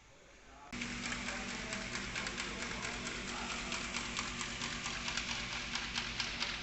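Background music with a fast percussive beat, starting abruptly about a second in.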